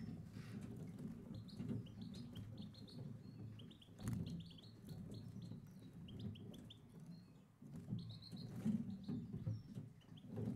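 European goldfinches calling and twittering: runs of short, high chirps, over a low steady rumble.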